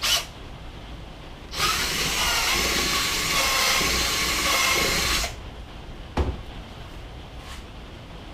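Handheld electric drill boring a hole with a large bit, running steadily for about three and a half seconds then stopping. A single sharp knock follows about six seconds in.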